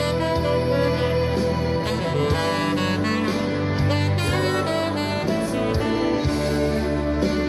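Instrumental background music with a melodic lead line over a steady bass.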